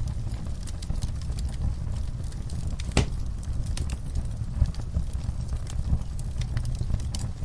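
Log fire burning in a fireplace: a steady low rumble of flames with frequent small crackles and pops, and one sharper, louder pop about three seconds in.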